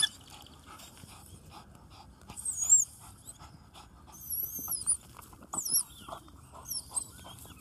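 A dog panting hard while digging out rats, with scrabbling sounds and four short, high-pitched squeals that glide up and down.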